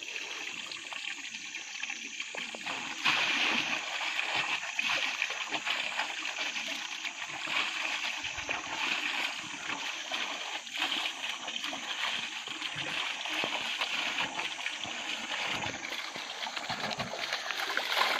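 Water running from a hose pipe and splashing as clothes are rinsed under it and dunked in a bucket of water. A steady rush of running water, louder and more broken-up splashing from about three seconds in.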